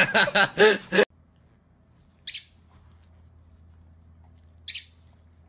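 A person laughing, cut off abruptly about a second in, then two short high-pitched chirps a couple of seconds apart over a faint low hum.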